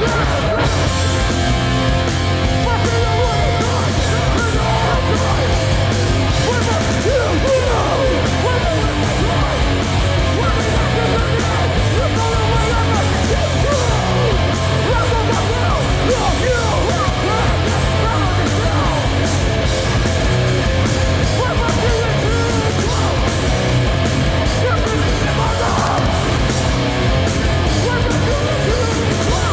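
Live hardcore punk band playing at full volume: distorted guitars, bass and drums under shouted vocals.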